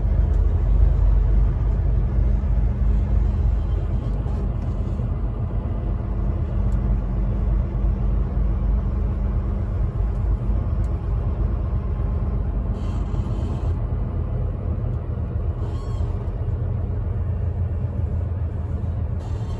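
Semi-truck engine running with a steady low rumble.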